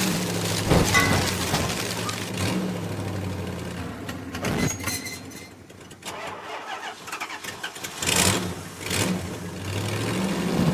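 Engine sound effect of a motor vehicle. A steady low engine note fades away a few seconds in, leaving a quieter stretch with scattered clicks and knocks, including two sharp knocks. The engine note comes back near the end.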